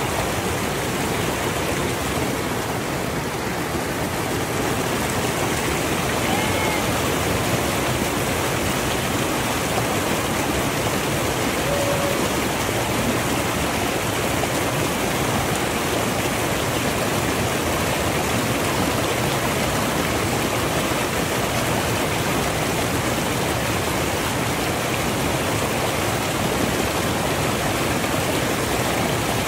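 Mountain creek rushing over rocks and small rapids: a steady, even rush of water.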